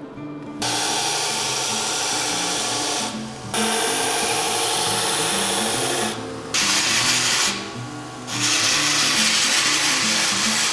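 A power tool grinding or sanding, in four runs of one to three seconds each that start and stop abruptly, over background music.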